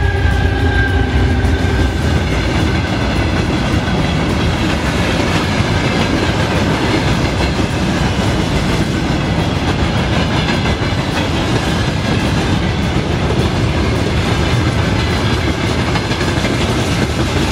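Battery-powered toy high-speed passenger train running around its plastic track: a steady clatter of motor and wheels, with a fading tone in the first couple of seconds.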